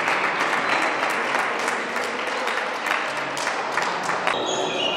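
Spectators clapping and applauding in a dense patter after a game is won, dying down about four seconds in.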